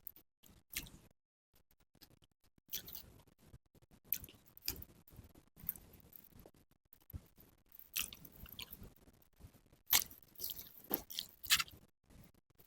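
Close-miked chewing of nasi pecel and sate kikil, with irregular wet mouth clicks and smacks between quieter pauses.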